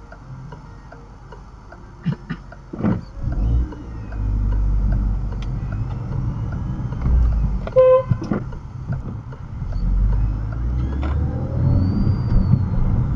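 Car pulling away from a stop: a few clicks as it sets off, then engine and road noise building in the cabin as it gets moving. A short car horn toot sounds about eight seconds in.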